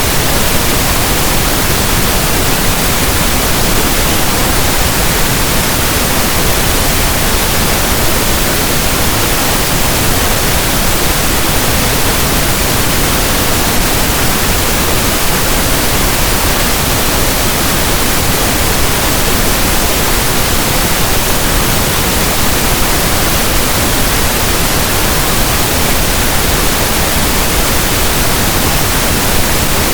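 Steady synthetic pink noise: an even, unchanging hiss like static from a radio not tuned to a station.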